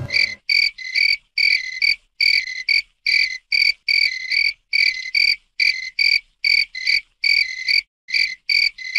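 A looped comedy sound effect of high, pitched chirps repeating about three times a second, with short silences between them, like a croaking or chirping animal.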